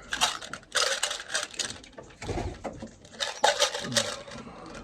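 Irregular bursts of rustling and clicking handling noise as a pigeon squab is handled in its nest box.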